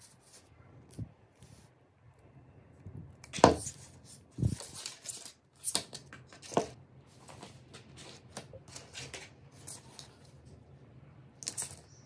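Handling noise from fitting a solderless clip connector to a COB LED strip: scattered sharp clicks and short rustles as pliers press the metal-and-plastic clip shut and the flexible strip is handled, the loudest click about three and a half seconds in.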